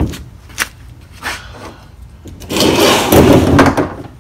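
A plastic kayak dragged across a concrete floor: a loud rough scrape lasting about a second and a half, starting about two and a half seconds in, after a sharp knock and a couple of lighter knocks.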